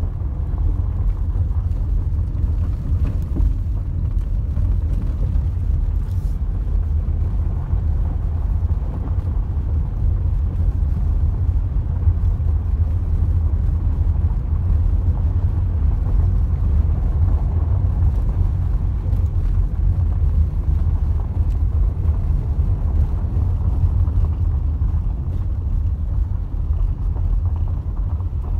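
Car driving along a gravel dirt road, heard from inside the cabin: a steady low rumble of tyres and engine.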